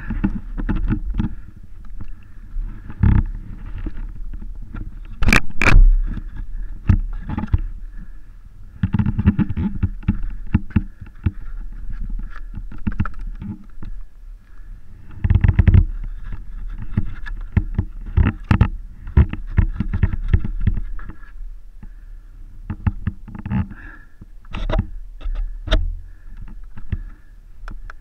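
Irregular scrapes, knocks and rustling as caked mud is cleared by hand and with a stick from a motorcycle's front wheel and fork, over a steady low rumble.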